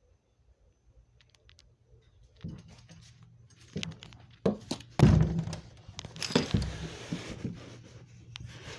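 A run of knocks and thumps with scraping and rustling, starting about two and a half seconds in, the loudest a deep thump about five seconds in. This is handling noise from the recording phone as it is moved and bumped against a plastic cooler.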